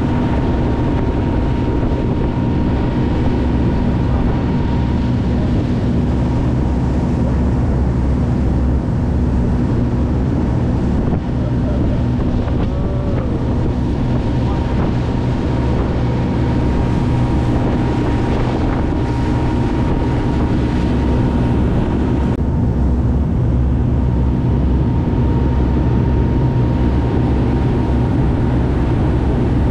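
Fishing charter boat's engines running steadily under way at speed, with a thin steady whine over the drone, water rushing past the hull and wind on the microphone.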